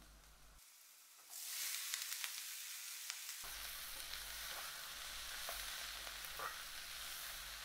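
Boiled potato cubes tipped into a hot, oiled pan of fried onions start sizzling about a second in, and the sizzle holds steady. A spatula stirs them through the pan, adding scattered small scrapes and ticks.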